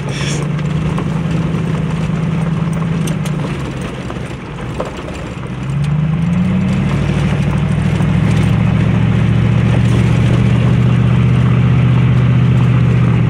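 Truck engine running as it drives a gravel road, heard from inside the cab over the noise of the tyres on gravel. The engine note eases off about three and a half seconds in, then rises as it speeds up around six seconds in and holds steady and louder.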